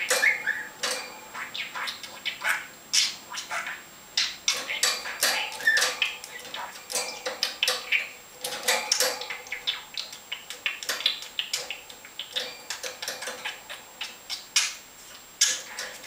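Pet budgerigar chattering: a fast, irregular run of sharp clicks, short chirps and brief warbled notes, with some talk-like mimicry.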